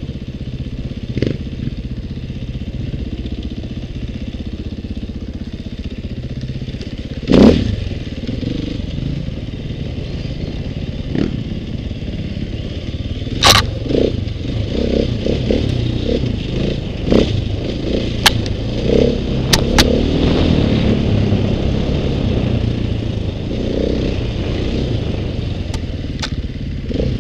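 KTM 450 dirt bike's four-stroke single-cylinder engine running under way on a rough trail, with a series of sharp knocks and clatters as the bike hits bumps and rocks; the loudest knocks come about seven and thirteen seconds in, and the engine and clatter grow busier around twenty seconds in.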